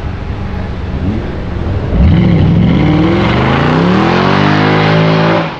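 Jaguar F-Type V8 R's supercharged 5.0-litre V8 running low, then about two seconds in it opens up loudly under hard acceleration, its pitch climbing steeply and holding high before cutting off suddenly near the end.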